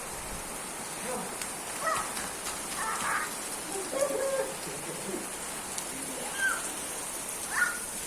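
Rain falling steadily with an even hiss, and about six short high chirps over it, the loudest about four seconds in and near the end.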